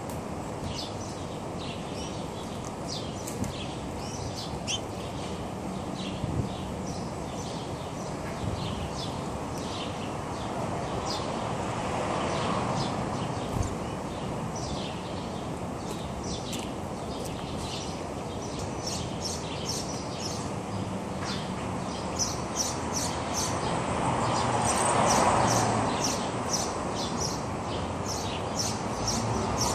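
A group of small birds chirping in many quick, short calls while feeding, over steady low background noise that swells a few times, notably about twelve seconds in and again near the end.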